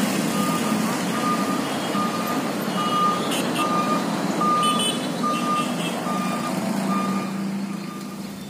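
Pitu-pitu (Bugis kite hummer, the roll-type 'Johannes 10') humming on a flying jalagundi kite: a steady low drone, with a regular short high beep about every two-thirds of a second. The owner finds its tone at this stage somewhat kecapi-like rather than deep and gong-like.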